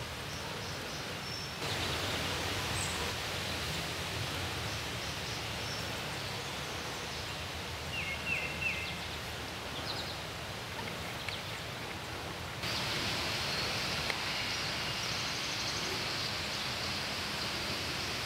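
Outdoor ambient noise through a camera's built-in microphone: a steady hiss over a low rumble, with a few short high chirps near the middle. The background noise jumps louder abruptly about a second and a half in and again about twelve seconds in.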